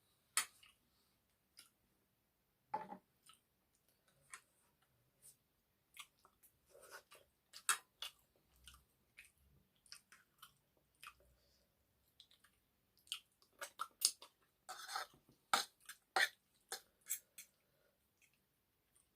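Close-up chewing of egg noodles with chicken curry: irregular wet mouth clicks and smacks, coming thicker and louder in the last third.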